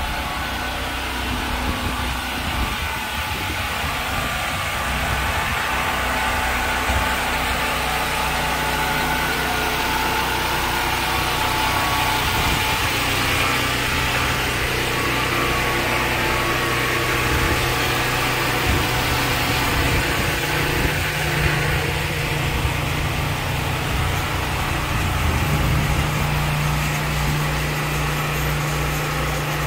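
An engine running steadily with a low, even hum that gets somewhat stronger in the last several seconds.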